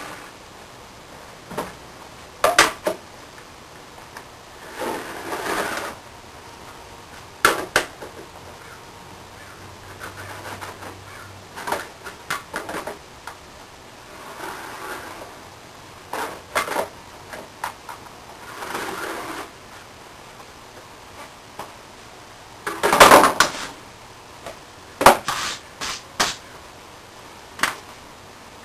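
Scattered taps and knocks of a metal square and tape measure being handled and set down on plywood, with short scratches of a pencil marking lines on the wood. The loudest is a brief clatter about 23 seconds in.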